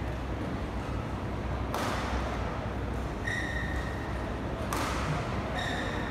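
Badminton court sounds between rallies: two sharp knocks about three seconds apart, each echoing briefly in the hall, and two short high squeaks of court shoes on the mat, over a steady low hum.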